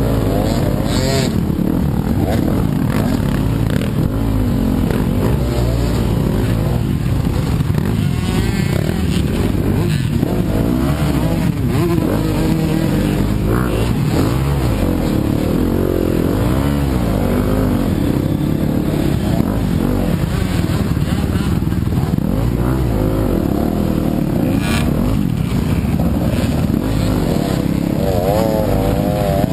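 Yamaha YZ250FX four-stroke single-cylinder dirt bike engine running continuously while ridden, its revs rising and falling over and over with the throttle.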